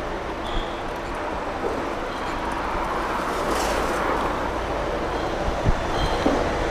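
Street traffic noise, a steady rumble of passing vehicles, with a couple of brief knocks about two thirds of the way in.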